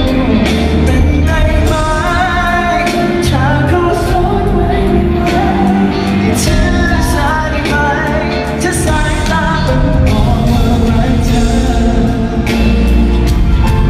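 Live pop band music with a singing voice over bass and drums.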